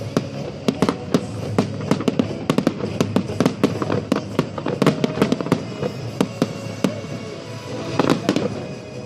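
Fireworks going off in rapid, irregular succession: sharp bangs and crackles, several a second, with a louder cluster near the end.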